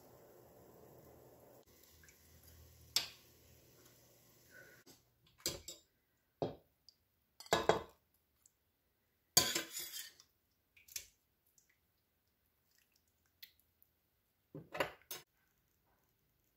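Metal spoon clinking and scraping against the pot, plate and bowl as curry is served: a handful of separate short clinks and scrapes with pauses between, the loudest about halfway through.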